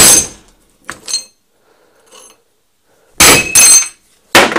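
Hammer striking a welded steel plate: several loud metallic clanks with a ringing tail, the heaviest a close pair about three seconds in.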